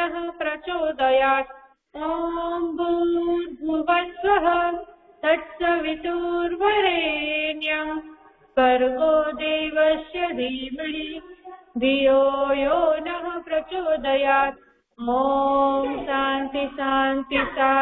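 A woman singing a prayer solo, in phrases of a few seconds with long held notes and short breaks for breath between them.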